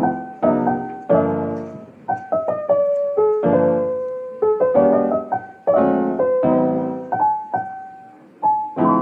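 Solo piano music: chords and single notes struck one after another, each left to ring and fade.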